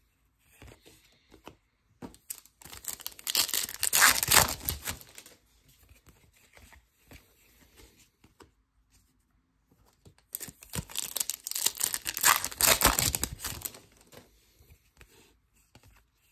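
Trading-card pack wrappers being torn open and crinkled, in two loud bursts of about three seconds each, several seconds apart.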